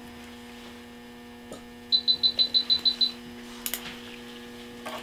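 A rapid run of about nine short, high-pitched electronic beeps lasting about a second, from an equipment beeper in a veterinary operating room, over a steady electrical hum. Two short clicks follow later.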